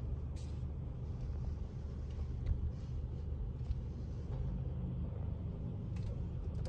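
A car running, heard from inside the cabin as a low steady rumble while it is driven slowly into a garage.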